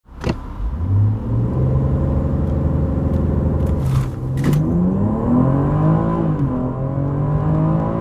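BMW X3 M40i's turbocharged inline-six, heard from inside the cabin, held at steady raised revs at a standstill, then launching at full throttle about halfway through. The revs climb through first gear, drop at an upshift, and climb again. A couple of sharp clicks come just around the launch.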